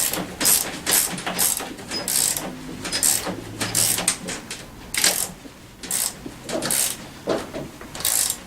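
14 mm socket ratchet tightening the front axle nut of a scooter wheel: a short burst of pawl clicks on each back-stroke, about two strokes a second.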